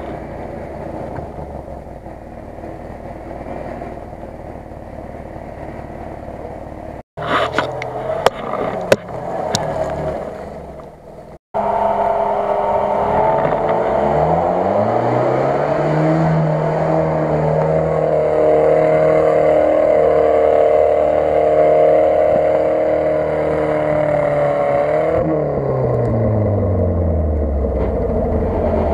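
Off-road UAZ-469's engine working in the forest: first a low running hum, then a short stretch of clattering knocks, then the engine revs up, is held high and steady for about ten seconds, and falls back to a lower pitch near the end.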